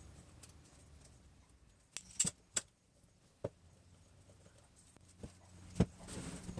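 Steel-bar quick-grip clamps clicking and clinking as they are handled, set and tightened: about six sharp clicks, a close group about two seconds in and more near the end, over a faint low hum.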